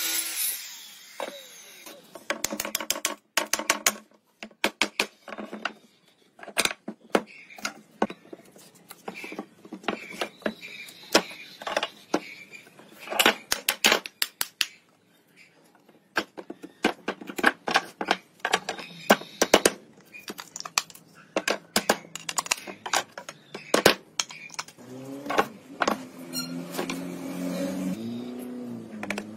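Wooden boards being handled and knocked together on a workbench: many irregular sharp knocks and clatters with short gaps between them. Music comes in near the end.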